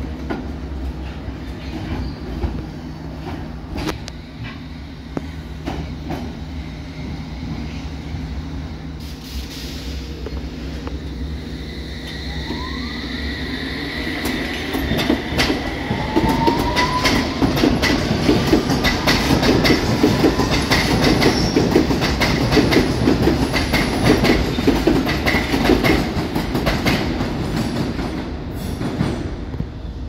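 London Underground S Stock (Bombardier Movia) train: a steady low hum at first, then from about halfway the traction motors whine, rising in pitch as the train accelerates away. It grows loud as the carriages pass, with wheels clicking over rail joints, and fades near the end.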